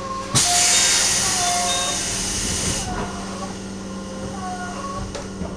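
JR Central 211 series electric train: a sudden loud blast of compressed-air hiss from its pneumatic system begins about a third of a second in and dies away over a couple of seconds. Under it, a steady hum and short whining tones that bend up and down repeat every second or so.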